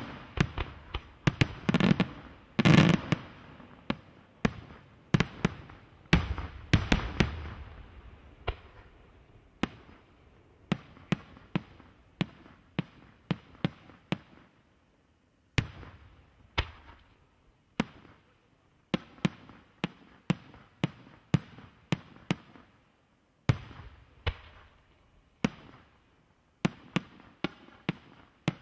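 Aerial firework shells bursting: a rapid run of heavy booms at first, then separate sharp bangs at irregular intervals, about one or two a second, with a few short lulls.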